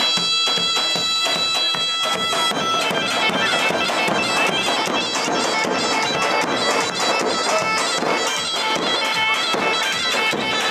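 Loud dance music: a reedy wind-instrument melody held in long steady notes over a steady drumbeat.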